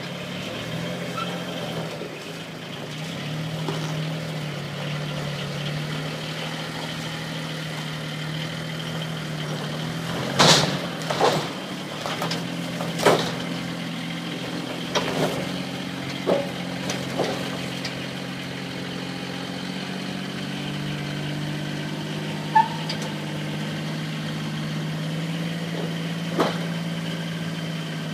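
Eurocopter AS355 TwinStar twin-turbine helicopter running steadily with a constant hum. A series of sharp knocks comes in the middle, and two more follow near the end.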